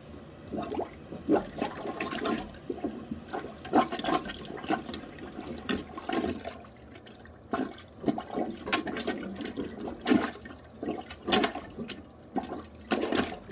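Rubber plunger pumped in a clogged toilet bowl: a run of irregular sloshing strokes of water, roughly one or two a second, with a brief lull about halfway. The toilet is blocked and drains only slowly.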